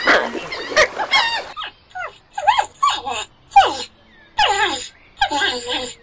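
A hedgehog's short, squeaking whimpers, each falling in pitch, come several in a row from about two seconds in. Before that, a bird's wavering honk-like calls stop about a second and a half in.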